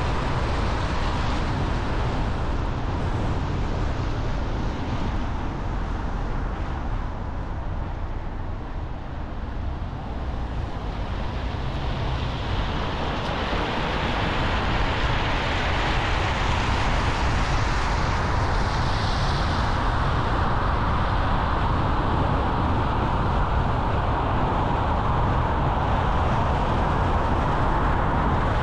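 Car driving along a road: steady tyre and road noise with a low rumble, easing off around nine seconds in, then building up again.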